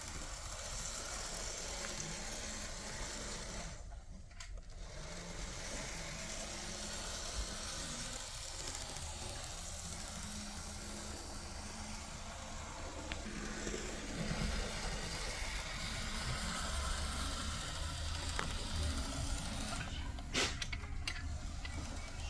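Märklin 88240 Z-scale model of an SBB Re 420 electric locomotive running on its track: a small motor whirring with a light rattle of wheels on rail. The sound dips briefly about four seconds in, and a few clicks come near the end.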